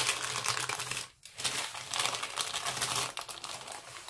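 Baking paper crinkling and crackling as a rolled sponge cake is unrolled from it: a dense run of small rustles with a brief pause about a second in.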